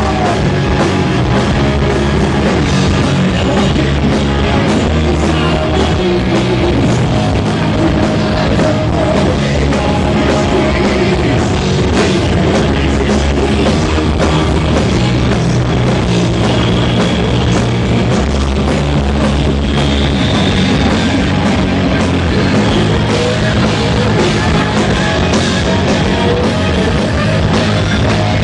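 Heavy metal band playing live: electric guitars, bass and drum kit at a steady, loud level with no let-up.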